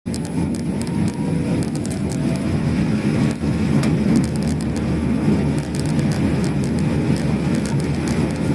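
Toyota COMS electric microcar driving, its low running and road rumble overlaid by a rapid, repeated high-pitched squeak (kyu-kyu-kyu) that keeps on while it moves. The cause of the squeak is unknown to the owner, who fears the car is failing.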